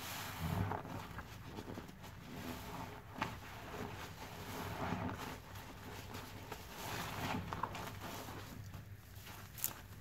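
Yellow foam sponges soaked in thick soap suds squeezed by hand in a metal tray: wet squelching and crackling foam in several slow squeezes, with sharper squishes about three seconds in and near the end.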